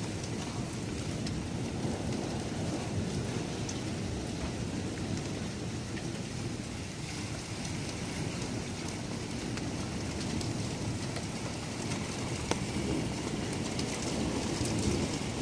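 Heavy rain falling steadily in a thunderstorm, with a low rumble beneath the patter.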